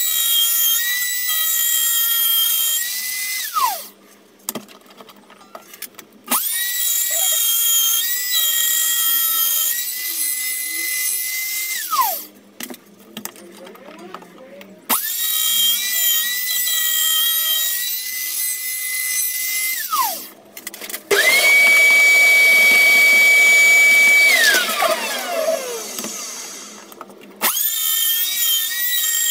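A small high-speed electric power tool switched on and off repeatedly, about five runs of a few seconds each. Each run holds a steady high whine, and at each switch-off the pitch falls away as the motor winds down. The fourth run, about two-thirds of the way in, is faster and louder than the rest.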